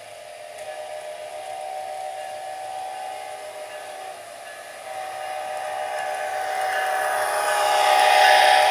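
HO scale model diesel locomotive's sound decoder sounding a chime horn in two long blasts. The model train's running noise on the track grows louder as it passes close by, and is loudest near the end.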